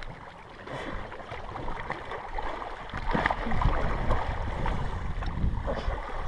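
Wind rumbling on the microphone over the wash of river water around an inflatable boat drifting downstream. It grows louder about halfway through.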